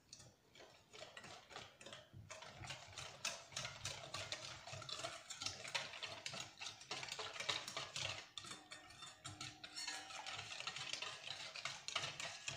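Wire whisk beating egg, sugar and cornstarch with a little orange juice in a metal mixing bowl: a fast, continuous run of clicks and scrapes as the wires strike the bowl, starting about half a second in.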